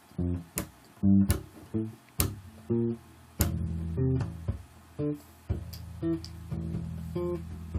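Electric bass played percussively: sharp clicks from striking muted strings, mixed with short plucked notes on the root, F. From about three and a half seconds a low note rings on under the muted hits.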